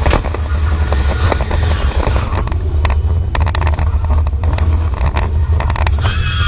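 Audi A4 STW race car's engine running hard under load, heard inside the stripped, roll-caged cabin as a heavy low rumble with road noise. A clatter of sharp clicks and knocks runs through the middle of the stretch.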